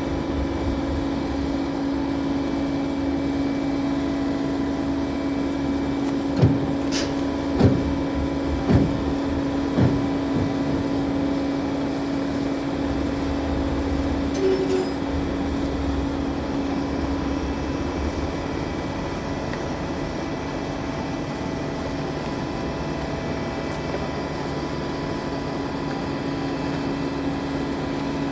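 Large lattice-boom crane's diesel engine running steadily with a low rumble and a constant hum. About a quarter of the way in come four knocks, roughly a second apart.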